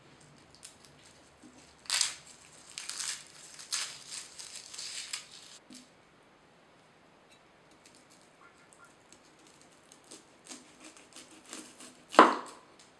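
Dry, papery garlic skin crackling and crinkling in bursts as a garlic bulb is broken apart and peeled by hand. Near the end, one sharp knock as a cleaver chops through the top of the bulb onto the wooden board.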